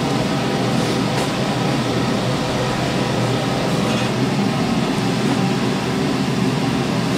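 Steady rushing background noise with no pattern or pitch, holding level throughout, with a faint tick about a second in and another about four seconds in.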